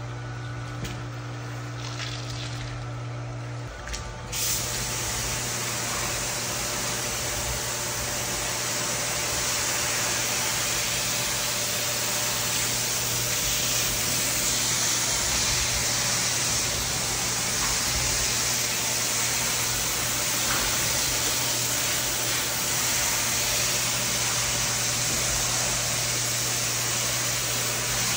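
A steady machine hum, then about four seconds in, a loud, even hiss of water spraying starts suddenly and runs on steadily over the hum.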